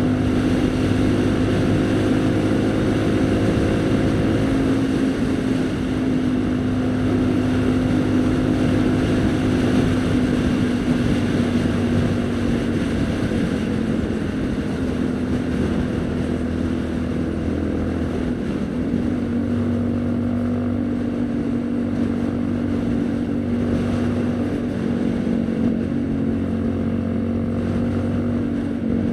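Haojue NK150's single-cylinder engine running at a steady cruise, with wind noise over the microphone. Its pitch dips briefly about two-thirds of the way through, then holds steady again.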